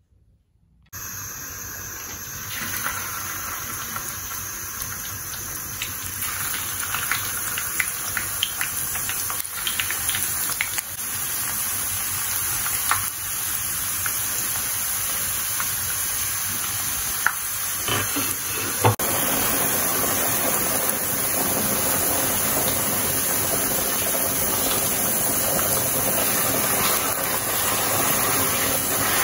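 Skewered potato pieces deep-frying in hot oil in a frying pan: a steady sizzle with scattered crackling pops. It starts abruptly about a second in.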